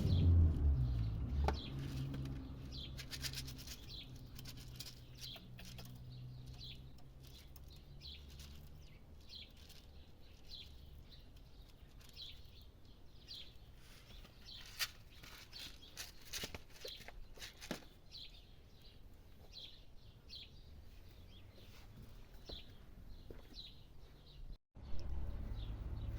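A small bird chirping over and over, short high chirps about once a second, with scattered clicks and rustles. A low thump opens the stretch.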